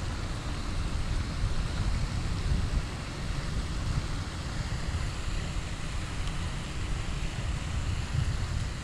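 Wind buffeting the microphone: an uneven low rumble under a steady hiss.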